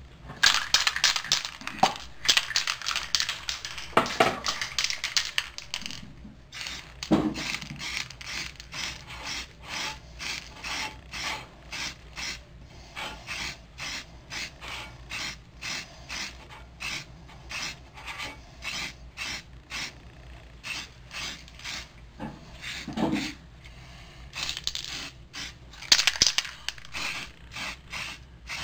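An aerosol spray-paint can being shaken, its mixing ball rattling inside: fast at first, then in a steady rhythm of about two rattles a second. Near the end comes a short hiss as white paint is sprayed onto a galvanised metal plant pot.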